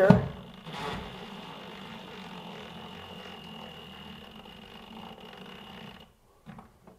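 A DeWalt 12V impact driver running slowly and steadily as it drives the clamping screw of a plastic old work box, with a faint high whine over its hum. It stops about six seconds in.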